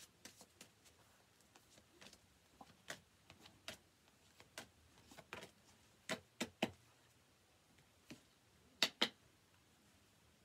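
Tarot cards being shuffled and drawn by hand: irregular soft taps and snaps of the cards, with three sharper clicks a little after six seconds and a louder pair about nine seconds in.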